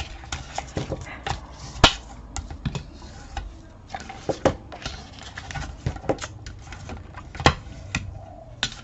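Scored cardstock being folded along its score lines and handled on a work table: irregular clicks, taps and paper rustles, the sharpest a single tap about two seconds in.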